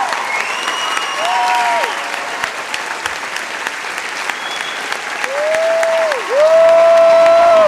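A theatre audience applauding at a curtain call, a dense steady clatter of clapping. Audience voices whoop over it in sliding calls, one held loudly near the end.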